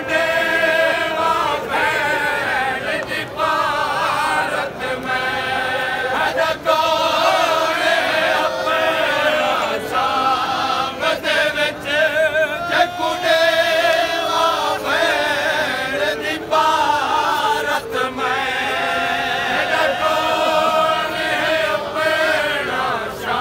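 Men's voices chanting a noha, the Shia Muharram lament, in long wavering sung lines, with sharp strikes of matam chest-beating here and there.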